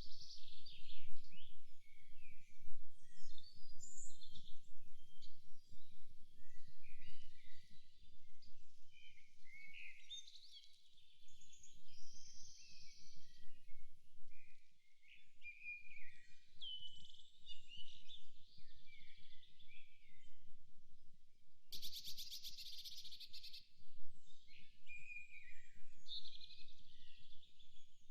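Forest birdsong: several songbirds singing and calling over one another in short chirps and whistles, with a fast rattling trill about three-quarters of the way through. A low rumble runs underneath.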